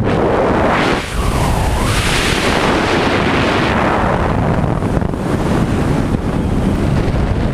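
Loud, steady rushing noise with a heavy low rumble, surging a little about two seconds in.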